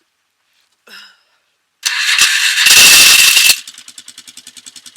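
Four-wheeler (ATV) engine running hard for about a second and a half as the machine is driven up onto the trailer, then dropping to a fast, even idle pulse.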